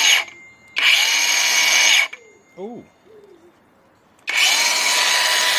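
18 V cordless circular saw, a Makita knock-off with a 125 mm blade, run free with no load in three trigger pulls: a short blip, a run of about a second, and a longer run starting about four seconds in. Each run comes up to speed quickly and holds a steady whine. The first two stop sharply when the trigger is released, as the blade brake halts the blade.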